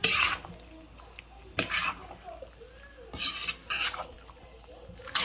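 A spatula scraping and stirring chopped squash in a nonstick wok, in several separate strokes about a second and a half apart.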